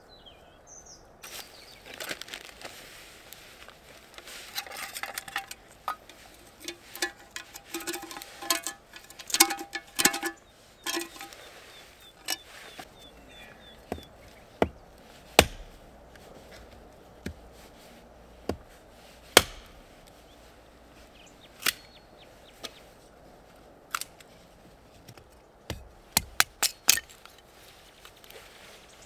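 Hatchet chopping wood on a chopping block: sharp, irregular chops a few seconds apart, with a quick run of strikes near the end.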